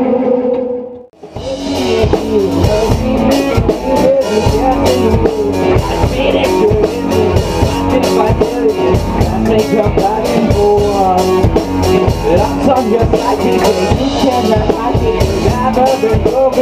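Rock band playing live on electric guitar, bass guitar and drum kit. A held guitar note dies away in the first second, there is a brief gap, then the whole band comes in together with steady drum hits.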